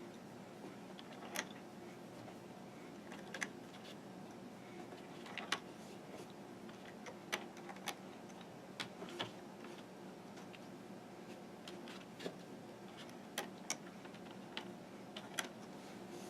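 Faint, irregular small clicks and taps as rubber bands are stretched and snapped onto the plastic pegs of a Fun Loom, about a dozen scattered through, over a faint steady hum.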